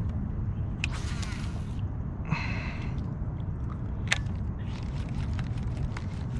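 Fishing rod cast, with line hissing off the reel about a second in, then reel and handling clicks over a steady low rumble.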